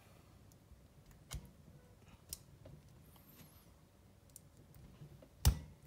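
A few sharp small metallic clicks as clutch springs are pressed down and flicked into their groove on the clutch shoes of a nitro RC engine with a small screwdriver. The loudest click comes near the end.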